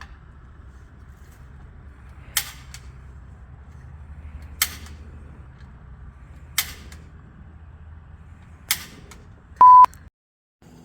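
Four sharp clicks about two seconds apart over a faint background hum, then a short, loud, steady beep near the end that cuts off abruptly into silence.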